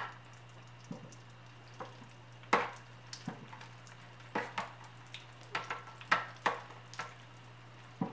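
Turon (banana spring rolls) frying in shallow oil in an aluminium pan: a faint steady sizzle broken by irregular sharp pops and clicks.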